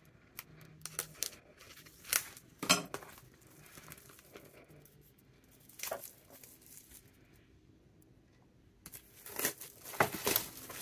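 Clear plastic shrink-wrap being torn open and peeled off a stack of paper card bases, crinkling. A few scattered crackles at first, then a quieter stretch, then a burst of tearing and crinkling near the end.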